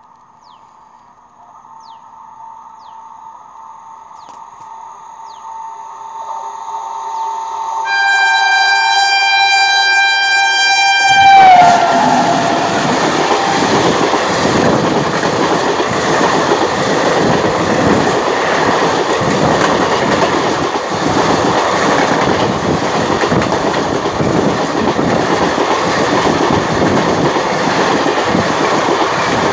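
Indian Railways electric locomotive sounding a long two-note horn as it approaches. The horn grows steadily louder, then drops in pitch as the engine passes about eleven seconds in. The rumble and clatter of its passenger coaches rolling past close by follows.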